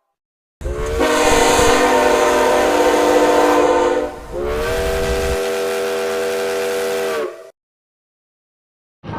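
Steam locomotive chime whistle blown twice: a long blast of several tones sounding together over a hiss of escaping steam, then a second, steadier blast that cuts off sharply.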